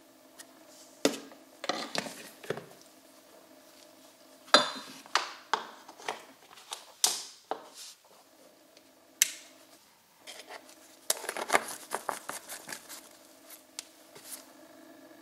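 Plastic clicks, taps and rustles from gloved hands handling a plastic oil bottle and the lid of a plastic heating jug, in scattered bursts with the sharpest click about four and a half seconds in. A faint steady hum runs underneath.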